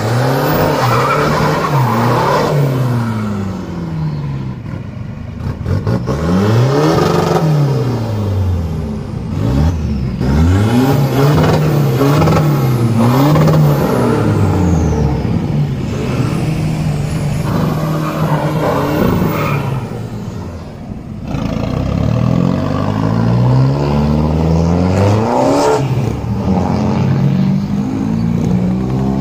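Modified diesel pickup truck engines revving hard, the pitch climbing and dropping over and over, each rev lasting a second or two.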